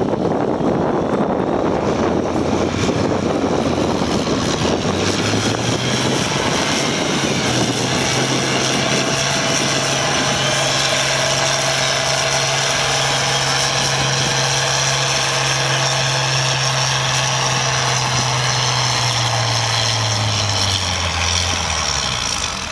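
Turbocharged International Harvester tractor engine pulling a sled under full load. Its pitch rises about five seconds in and holds steady with a high turbo whine above it, then drops away near the end as the tractor comes off the load.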